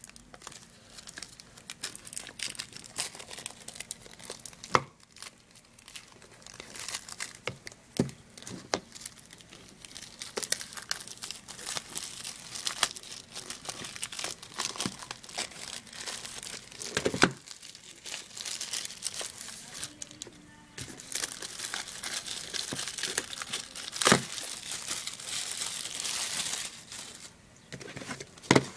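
Packaging being opened by hand: continuous crinkling and tearing, with a few sharp snaps along the way.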